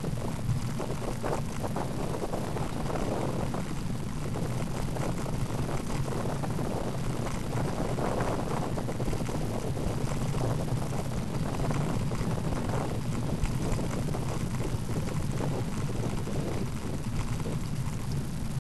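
Wind buffeting the microphone of a bicycle-mounted camera while riding, over a steady low rumble from the moving bike.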